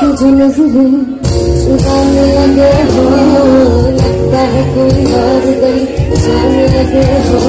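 A woman singing long held notes live with a band, amplified through a concert sound system. The music breaks off briefly about a second in, then carries on.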